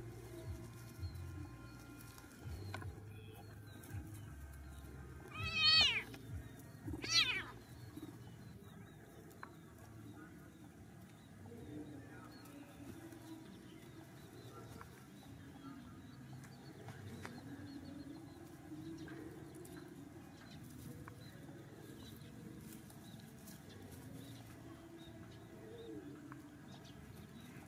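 Two short, high, wavering animal cries about a second apart, with a faint low rumble underneath.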